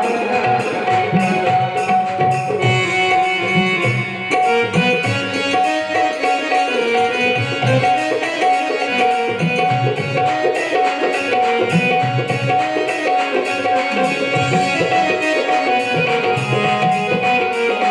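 Instrumental interlude of a devotional bhajan: tabla playing a steady rhythm under a sustained, droning melody instrument, with no singing.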